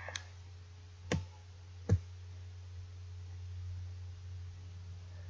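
Three computer mouse clicks, the loudest about two seconds in, over a steady low hum.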